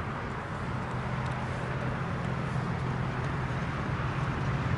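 Light propeller aircraft's piston engine droning steadily, slowly growing louder as it approaches.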